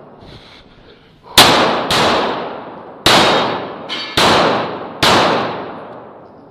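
Five pistol shots from a CZ Shadow 2 in 9mm, unevenly spaced over about four seconds, each trailing off in a long echo. These are the last shots of an IPSC course of fire.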